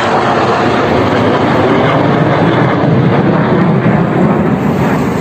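Sukhoi Su-57 fighter jets flying past overhead, a loud steady jet-engine roar that turns deeper towards the end.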